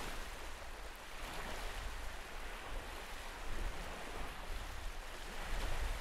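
Small wind-driven waves washing and breaking on a sandy lakeshore in a steady, swelling wash, with wind rumbling on the microphone.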